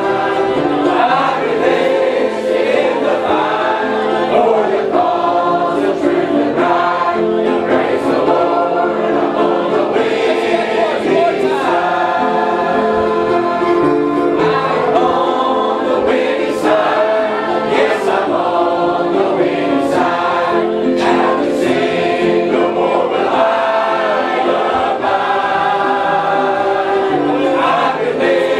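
Church choir singing a gospel song, several voices together.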